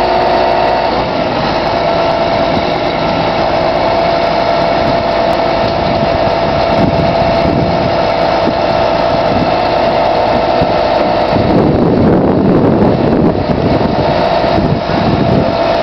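Diesel engine of a crane truck running steadily to power its hydraulic knuckle-boom crane while it swings a suspended crawler dozer, with a steady whine over the engine noise. The sound grows louder and rougher for a second or so about twelve seconds in.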